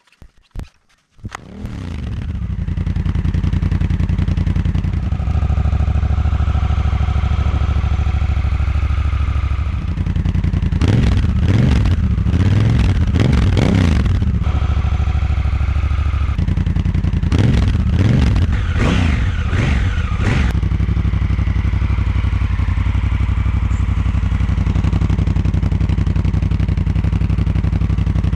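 Honda CRF1000L Africa Twin's parallel-twin engine starting about a second in and settling into a steady idle with a deep bass exhaust note, through a stock muffler with its internal baffles cut out. Two sets of quick throttle blips near the middle, and another at the very end.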